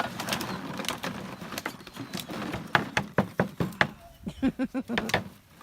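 Border collie puppies playing in and around a small pool: a run of sharp knocks and clicks from their scrambling, then a quick string of about five short yips about four seconds in.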